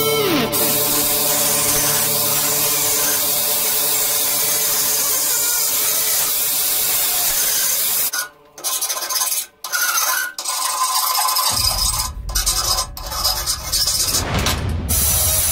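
Angle grinder grinding a steel blade clamped in a vise, a steady harsh hiss, which after a few abrupt cuts gives way to the back-and-forth rasp of a hand file on the steel.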